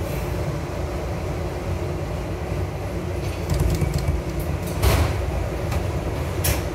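Subway train running through a tunnel: a steady low rumble of the car on the rails, with a few sharp clacks, the loudest about five seconds in and again near the end.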